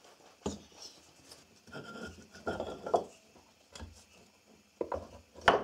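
Wooden parts of an old box handled on a workbench: a loose side panel being fitted onto the box. There are scattered knocks of wood on wood and a stretch of rubbing and clattering in the middle, with the sharpest knock near the end.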